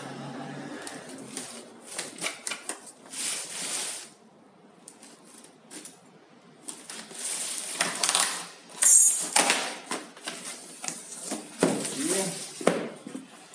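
A utility blade slitting the packing tape and cardboard of a shipping box, in irregular scratchy strokes with tearing and rustling of cardboard, broken by a quieter stretch about four to six seconds in.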